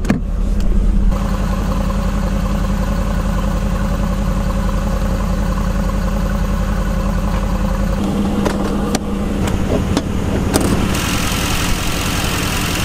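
Mercedes-AMG GT C's 4.0-litre twin-turbo V8 idling steadily. The sound shifts abruptly about eight seconds in, with a few sharp clicks, and a brighter hiss joins near the end.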